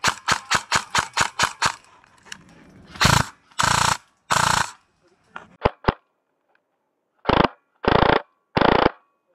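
Electric airsoft gun firing close by: a quick, even string of shots about five a second for the first couple of seconds, then six short bursts in two groups of three with pauses between.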